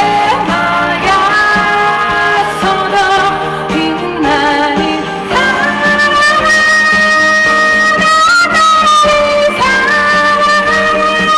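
Live pop-rock band performance with a female singer, the music loud and continuous, with long sustained high notes through the second half.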